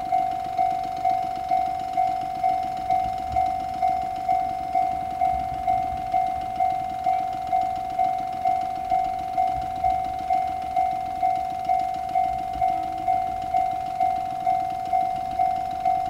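Japanese railway level-crossing alarm, an electronic bell tone of the JR East Tohoku type, ringing steadily at about two strikes a second: the crossing's warning that a train is approaching.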